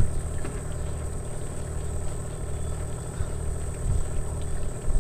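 An engine idling steadily, a low even hum, with a faint thin high whine above it.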